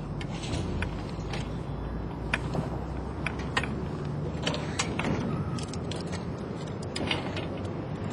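Irregular sharp metallic clicks and clinks of fall-arrest and rescue hardware being handled at the tripod's base, over a steady low rumble.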